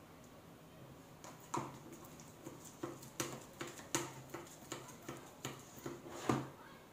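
Slime being mixed by hand: a run of wet clicking, squishing strokes, about two to three a second, starting a second and a half in and ending with the loudest one.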